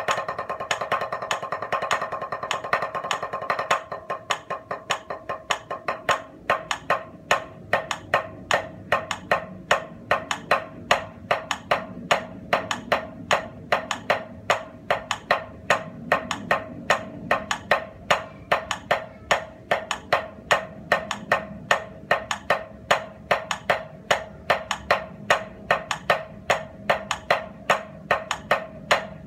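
Drum played with two sticks: a continuous, even stream of alternating single strokes in triplets, with louder accented strokes standing out about two or three times a second as the accent moves through the triplet grid.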